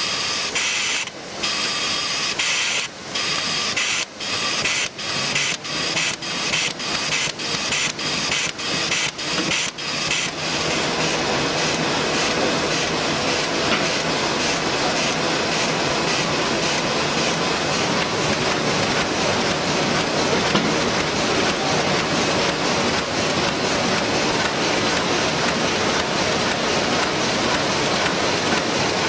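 Sheet-fed offset printing press running. A rhythmic hissing pulse speeds up over the first ten seconds or so, from about one beat every second and a half to about two a second, then merges into a steady, dense machine hiss.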